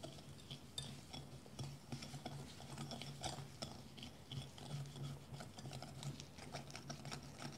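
Wire whisk stirring a thick paste of pudding powder, sugar and milk in a glass bowl: faint, irregular light clicks and scrapes of metal on glass, over a low steady hum.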